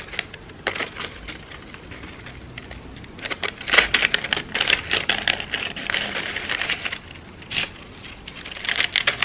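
Crepe paper crinkling and rustling in close, irregular crackles as paper poppy petals are handled and pressed on, busiest in the middle, with a sharper crackle near the end.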